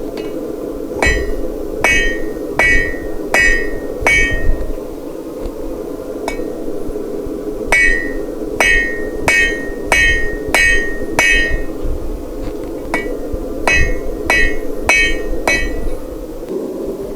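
Blacksmith's hammer striking hot steel on an anvil in three runs of quick, ringing blows, about five, six and five strikes, with a single lighter tap between the first two runs. A steady low hum runs underneath.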